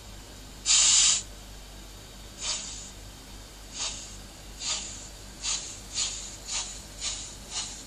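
Sound module of a Märklin H0 model steam locomotive pulling away: a loud blast of steam hiss about a second in, then chuffs that come quicker and quicker, about two a second by the end.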